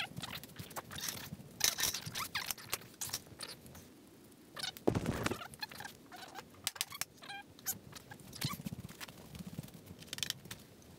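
Hands handling small tools and parts: irregular clicks, taps, scrapes and rustling, with one louder knock about five seconds in.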